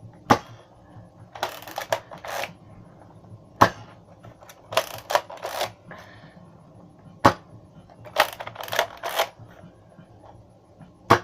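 A Nerf dart blaster firing four shots, each a sharp snap, roughly three and a half seconds apart, emptying its clip. Between the shots come quick groups of three or four clacks.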